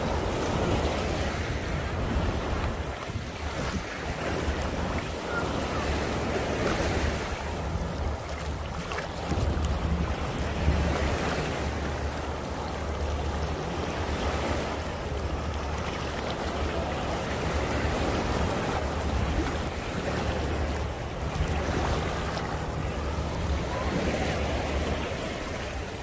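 Small sea waves breaking and washing in the shallows, the sound of surf swelling and easing every few seconds. Wind buffets the microphone as a low rumble underneath.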